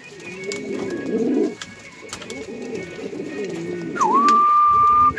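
Buchón Canario pouter pigeon cooing, a run of low rolling coos one after another. About four seconds in, a loud steady high whistle-like tone dips briefly, then holds for about a second over the cooing.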